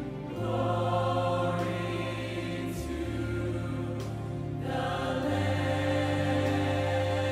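Large mixed choir singing a slow worship song in held chords over sustained low bass notes, the harmony changing every couple of seconds.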